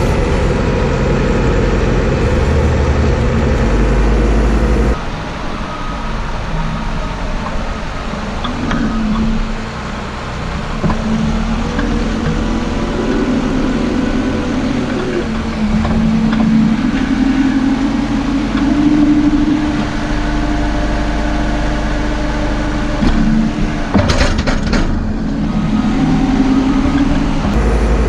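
Diesel engine of a farm loader running, heard from inside its cab, with its note rising and holding several times as the hydraulics work the silage shear grab. There is a sharp clank about 24 seconds in.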